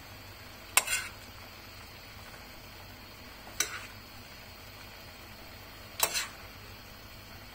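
Chicken stew sizzling steadily in a sac pan, with a utensil knocking against the pan three times as it is stirred.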